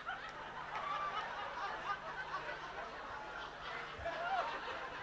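Audience laughing and chuckling, with scattered voices talking underneath.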